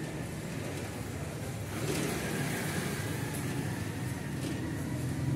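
Street traffic noise: a motor vehicle's engine running with a steady low hum, growing louder about two seconds in as it comes closer.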